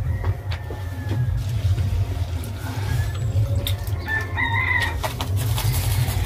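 Chickens calling in the background, with a short pitched call about four seconds in. Water is poured from a steel jug into a steel bowl of chopped cabbage, with splashes and metal clinks, over a steady low rumble.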